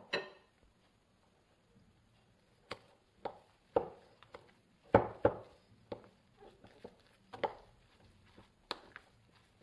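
Metal fork stirring a thick cottage-cheese mixture in a glass bowl, clinking and knocking against the glass at irregular intervals, with a sharp knock right at the start.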